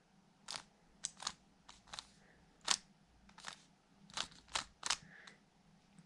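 A 3x3 plastic speedcube's layers being turned with fingertricks through the Sune algorithm (R U R' U R U2), using a pinch U: about ten short, sharp clacks at an uneven pace over a few seconds.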